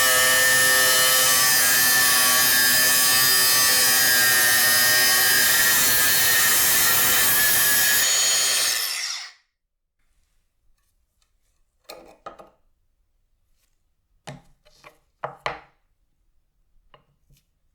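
An electric power tool running steadily with a whine, then switched off and spinning down about eight seconds in. A few light knocks of handling follow.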